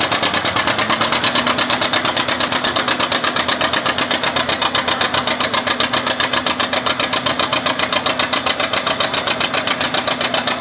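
Farm tractor engine running hard under load while pulling a weighted sled, with a rapid, even pulsing beat and a steady hum.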